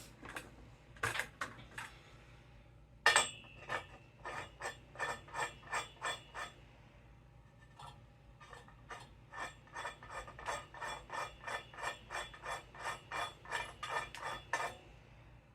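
Rhythmic ratchet-like clicking, about three clicks a second, as a threaded part of a metal dance pole is twisted into place. A few scattered clicks come first, and the steady run starts about three seconds in.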